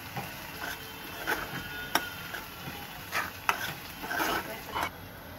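A metal ladle scraping and knocking against a metal kadhai as onions and green chillies are stirred in hot oil, in about six irregular strokes over a steady frying sizzle.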